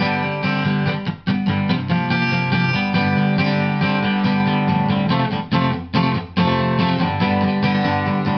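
Background music of a strummed acoustic guitar, a steady run of chords.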